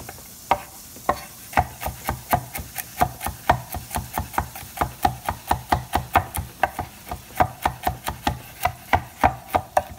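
Chef's knife chopping garlic cloves on a wooden cutting board, the blade knocking on the wood. A few spaced strokes at first, then a steady quick rhythm of about three to four knocks a second.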